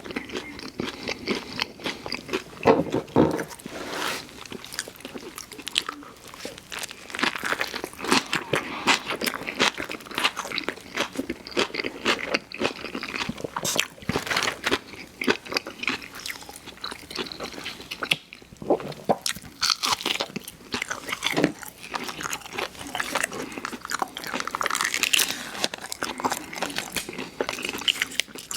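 Close-miked eating of crunchy fast food: repeated bites and crisp crunching and chewing.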